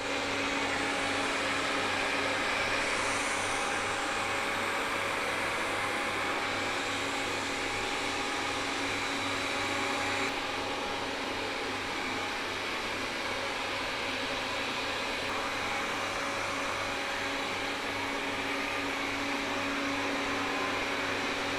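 Mi Robot Vacuum-Mop P running: a steady whir with a constant low hum as it cleans up dust spread on the floor.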